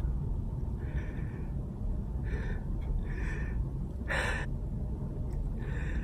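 A man's short, sharp gasping intakes of breath, about five, spaced roughly a second apart, the loudest a little past the middle, the build-up of someone about to sneeze. A steady low hum lies underneath.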